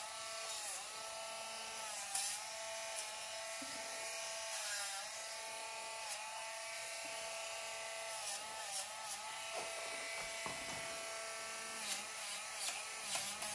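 Small cordless pet nail grinder running steadily with a high motor whine, its pitch dipping briefly each time the spinning drum is pressed against the dog's nails. A few light clicks near the end.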